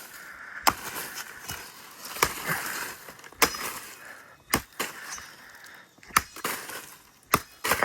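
A blade chopping at a fallen plantain stalk, cleaning it: about six sharp, separate strikes a second or so apart, with rustling between them.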